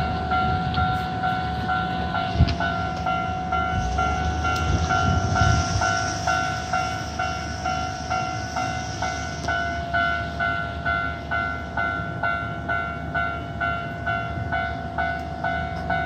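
Japanese railway level-crossing alarm at a Hankyu Railway crossing, ringing with an even two-tone electronic clang about twice a second: the warning that a train is approaching. A low rumble swells briefly about five seconds in.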